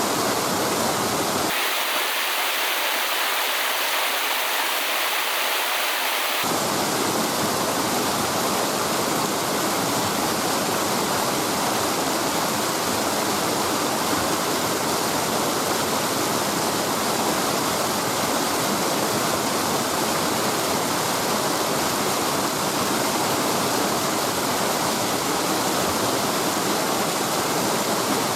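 Mountain river rushing, a steady loud wash of water noise. From about two to six seconds in, the low rumble drops away and the sound turns thinner and hissier.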